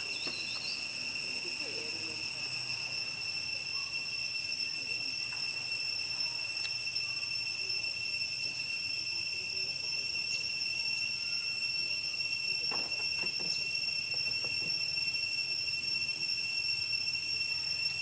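Steady, high-pitched insect drone. A few faint taps come about thirteen seconds in.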